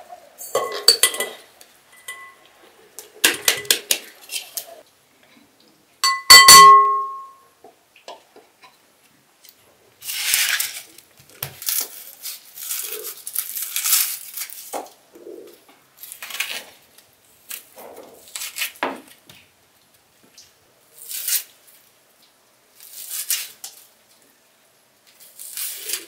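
Glass bowls clinking as a ground nut mixture is poured and tapped from a small glass bowl into a large one, with several ringing clinks and the loudest about six seconds in. Then a knife scraping and peeling the skin off a red onion in a series of short scraping strokes.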